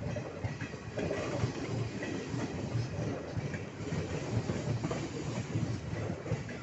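Indian Railways passenger coaches rolling past close by: a continuous rumble with the wheels clattering over the rail joints.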